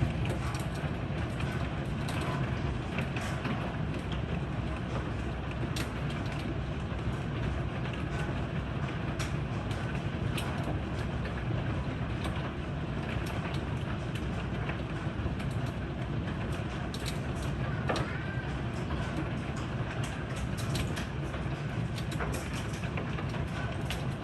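Heavy thunderstorm rain pouring down in a steady rush, with scattered sharp ticks.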